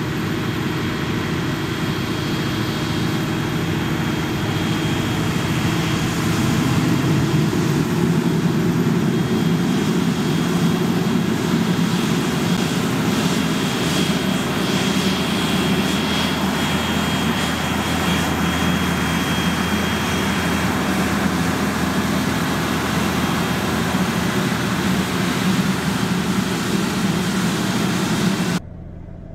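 Claas Xerion tractor engine running steadily under load while pulling a Horsch Focus 6 TD seed drill, with the rush of its tines and discs cutting through dry soil and a faint high whine in the middle. The sound drops abruptly to a much quieter level near the end.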